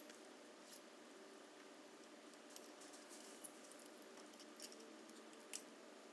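Near silence: faint shop room hum with a few light, scattered metallic clicks and clinks of hand tools and parts being handled on a bare engine.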